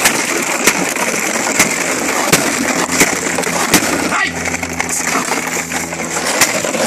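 Empty plastic bottles crackling, crunching and clattering as a puppy scrambles through them tugging on a rag, with frequent sharp cracks. A steady low hum runs underneath.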